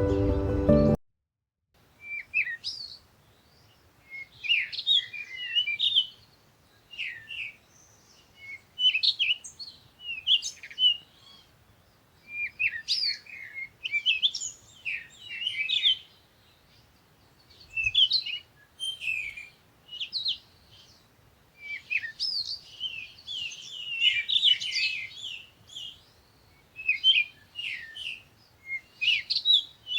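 Birds chirping and singing in short, quick phrases with brief pauses between them. Music is heard for about the first second, then stops.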